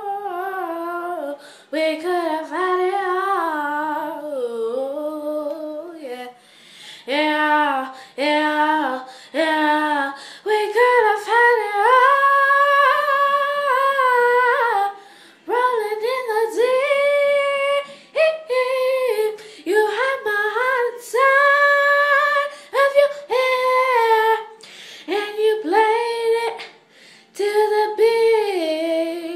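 A young girl singing a cappella: one voice, long held notes that bend up and down, in phrases broken by short pauses for breath. The voice fades out near the end.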